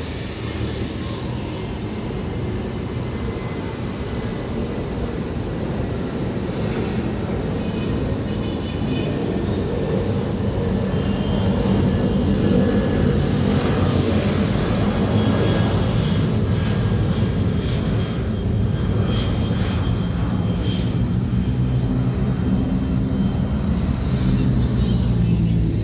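Jet engines of an Airbus A330-200 running, a steady rumble with faint high whining tones that grows gradually louder.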